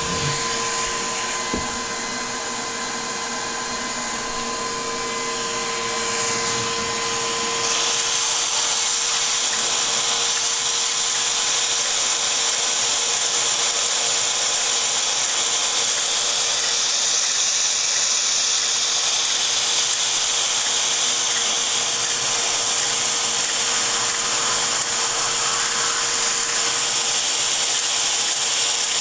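Lego model steam engine running, its flywheel, crank and valve gear turning: a steady whirring hiss. About eight seconds in it grows louder and brighter, then holds steady.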